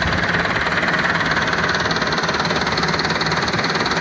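Diesel tractor engine running steadily with an even, rapid firing beat.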